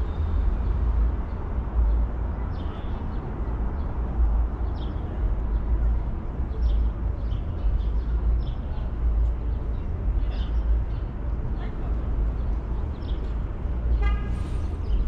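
Street ambience with a steady low rumble of city traffic. A vehicle horn toots briefly near the end.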